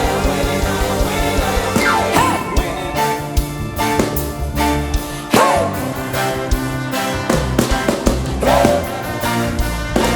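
Live praise and worship music with singing over a drum kit and band.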